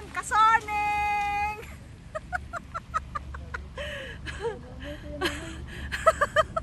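A person's voice holding a long called or sung note with a rising start for about a second and a half, followed by scattered faint voices and a few light clicks.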